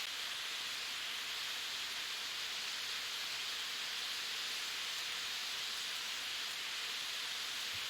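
A steady, even hiss with no other sound in it, cutting in and out abruptly.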